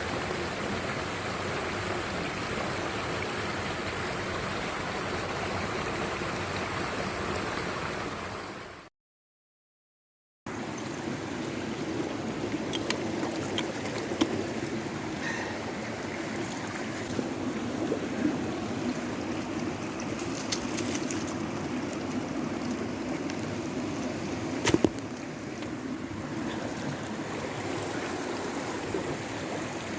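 Mountain stream water running steadily, cutting to silence for about a second and a half around nine seconds in, then running again with a few faint knocks.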